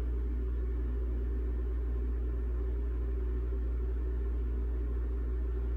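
Steady low hum with a faint hiss, unchanging throughout, with no distinct event.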